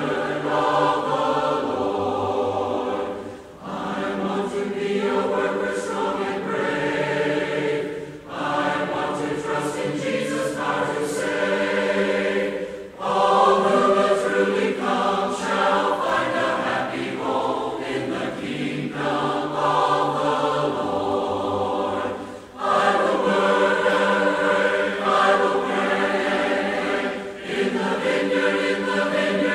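Choir singing in long held chords, phrase after phrase, with short breaths between phrases; a soundtrack laid over the pictures.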